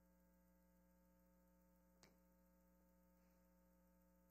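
Near silence: a faint, steady electrical hum, with one faint tick about halfway through.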